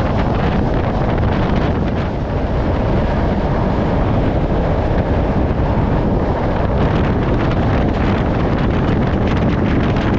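Wind buffeting the microphone over the steady rumble of a moving train.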